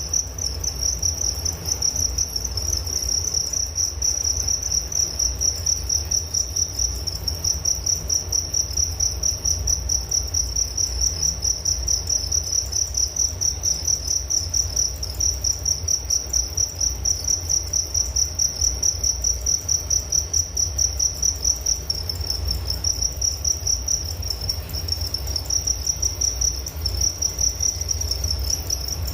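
Crickets chirping steadily: a single high note repeated in rapid, evenly spaced pulses.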